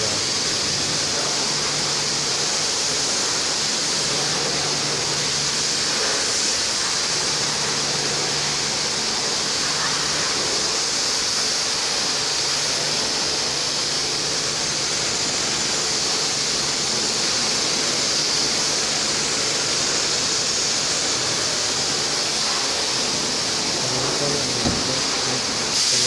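High-pressure water spray from a car-wash pressure-washer gun, a steady loud hiss as the jet is played over a car's body. A faint low hum comes and goes underneath, and a single light knock sounds near the end.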